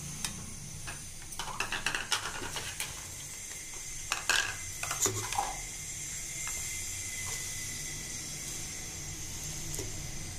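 Stainless steel bowls knocking and clinking against a steel mixer-grinder jar as ingredients are tipped in, in two short bursts of clatter in the first half, then leaves being pressed into the jar by hand. A steady faint hiss lies underneath.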